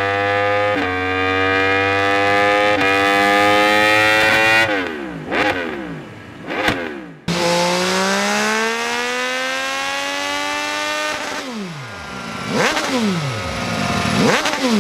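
Motorcycle exhaust through an SC Project SC1-R carbon muffler, accelerating hard: the engine note climbs and drops sharply at two upshifts about 1 and 3 seconds in, then falls off with short throttle blips. The note then makes one long rising pull and falls away again with more blips near the end, as on downshifts.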